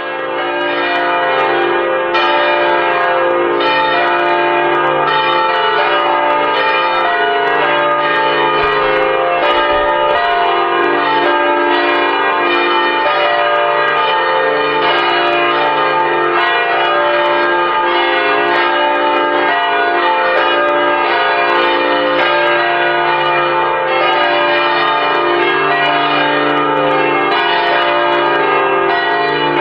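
Several church bells ringing together in a continuous, overlapping peal, swelling up in the first second and then holding steady.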